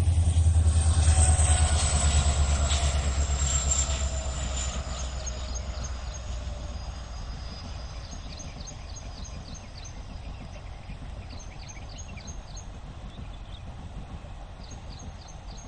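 Passenger train on Indian Railways passing at a distance and moving away. Its low rumble fades over the first several seconds, and its tones fall in pitch as it recedes.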